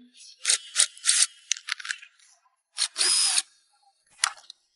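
A ratchet wrench clicking in short bursts as it loosens the bumper fasteners, with a longer run about three seconds in and a single sharp click near the end.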